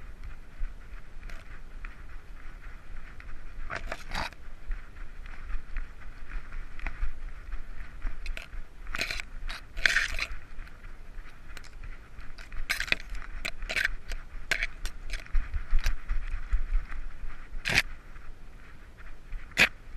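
Handling and rubbing noise from a camera strapped to a trotting dog: a steady muffled hiss and low bumping, broken by sharp clicks and clinks, the strongest near the end.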